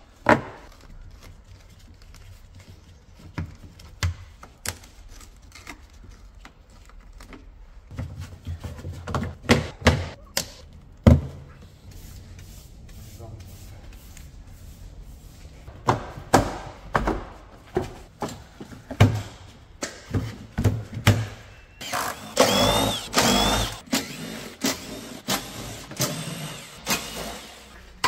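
Hand work on a car's plastic underbody covers: a long run of sharp clicks and knocks as the clips and fasteners are pried and pulled off with pliers. A louder, noisier stretch with a wavering high tone comes about two-thirds of the way through.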